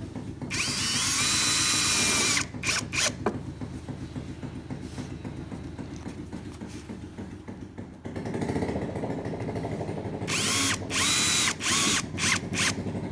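20 V brushless cordless drill-driver driving screws into the edge of a solar panel. There is a loud high whine lasting about two seconds, then a few short trigger bursts. A lower run comes about eight seconds in, and another series of loud bursts follows near the end as the next screw goes in.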